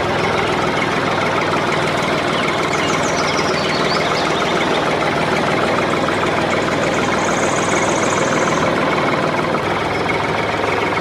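A motor or engine running steadily at idle with a dense rattling texture, starting and stopping abruptly.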